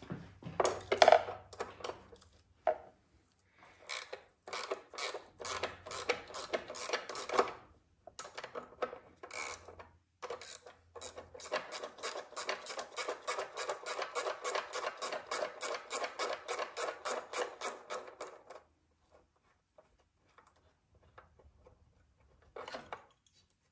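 Hand tools working on small-engine parts during teardown. Irregular clicks and knocks come first. Then, for about eight seconds, there are quick, even rasping strokes, about five a second, which stop sharply. A couple of short knocks come near the end.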